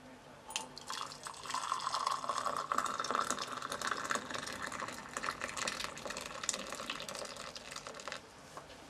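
Hot liquid poured in a thin stream from a glass jug into a mug, splashing as it fills the mug. The pour starts about half a second in and stops shortly before the end.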